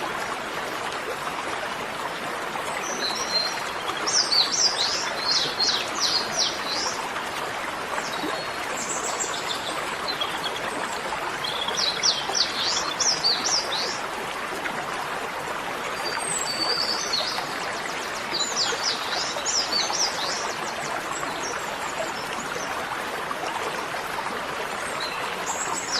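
Small birds singing in repeated bursts of quick, high chirping notes every few seconds, over a steady rushing noise.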